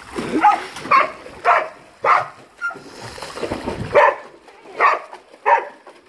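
A dog barking: a steady string of about ten short barks, roughly two a second.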